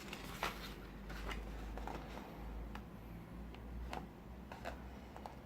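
Paper and card being handled: faint, scattered light rustles and ticks, about ten over a few seconds.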